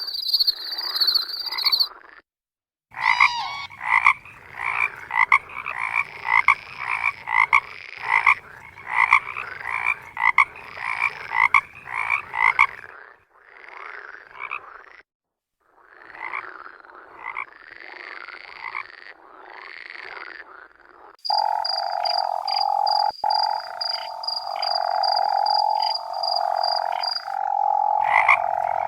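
Frogs croaking in rapid repeated calls, in several recordings cut together with brief silent gaps. From about three quarters of the way in, a steady high trill runs over a continuous lower drone of calling.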